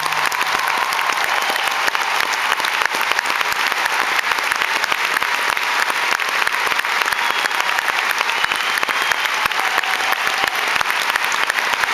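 A large arena audience applauding at the end of a song: dense, steady clapping, with the last sustained note of the music fading out in the first second.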